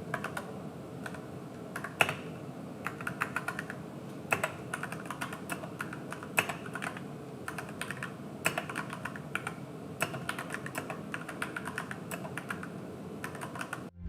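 Typing on an AKKO 3061S 61-key mechanical keyboard with pre-lubed Gateron switches: an uneven run of keystroke clicks, several a second, stopping just before the end.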